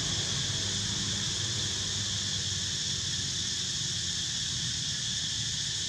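Steady high-pitched drone of a chorus of insects, with a low steady hum underneath.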